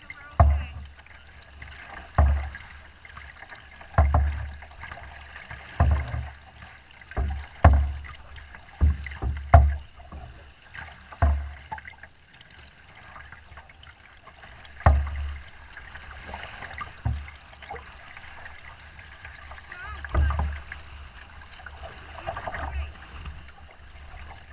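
Waves slapping against the hull of a small boat crossing choppy, wind-driven water: a hollow thump at uneven intervals, every second or two, with splashing between, quieter for a few seconds around the middle.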